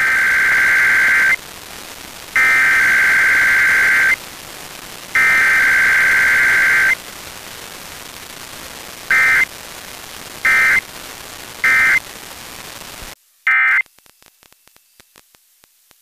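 Emergency Alert System SAME data bursts received over FM radio: three long bursts of rapid two-pitch digital tones for the Required Weekly Test header, then after a pause three short end-of-message bursts, all over steady radio hiss. Near the end the hiss cuts off, one more short data burst sounds, and only faint ticks follow.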